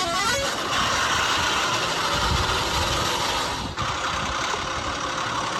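A vehicle engine running steadily, with a brief dip about two-thirds of the way through.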